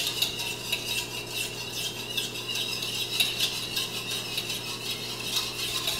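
Wire whisk beating milk and egg in a bowl, its tines clicking rapidly and steadily against the sides of the bowl.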